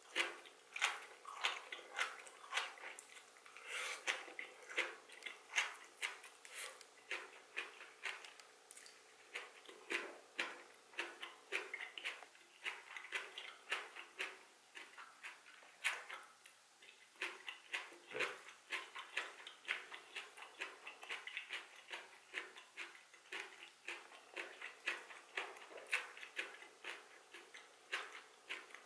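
Close-miked chewing: an uneven run of wet mouth clicks and smacks, several a second, as a mouthful of seasoned bean sprouts and greens is eaten.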